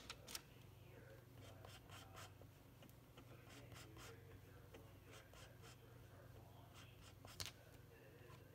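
Faint scraping and light taps of a metal palette knife mixing oil paint with white on a palette, with a couple of sharp ticks at the very start and another about seven seconds in, over a low steady hum.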